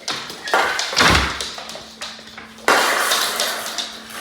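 A door being handled as a guest comes in: a few knocks and a heavy thud about a second in, then a sudden rustling clatter near three seconds in that fades.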